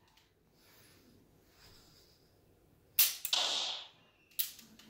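Dry-fire clicks of a Bersa Thunder 9 mm pistol fitted with a laser training cartridge: a sharp click about three seconds in, followed at once by a short hiss lasting most of a second, then a second sharp click about a second and a half after the first.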